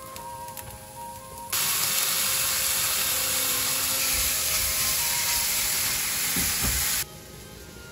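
Bacon and button mushrooms sizzling loudly in a hot frying pan. The sizzle starts suddenly about a second and a half in and cuts off abruptly about seven seconds in.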